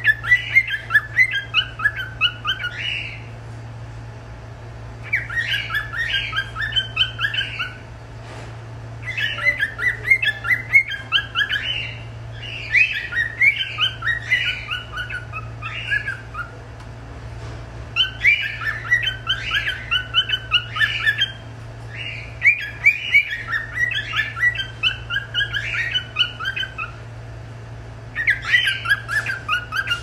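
Lutino cockatiel singing: bouts of quick, chirpy warbling notes, each a few seconds long with short pauses between them.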